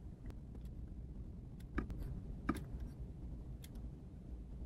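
About half a dozen faint, scattered computer clicks over quiet room tone, two of them a little louder around the middle.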